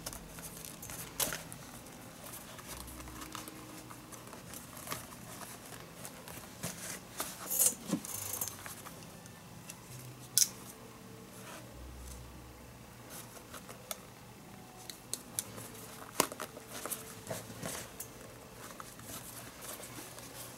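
Leather lace being threaded and pulled through the palm of a Rawlings baseball glove with a metal lacing needle: intermittent scraping and rustling of leather, with a few sharp clicks.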